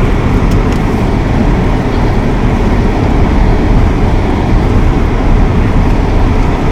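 Car driving slowly over a rough, rutted dirt track: a loud, steady rumble of engine and tyres.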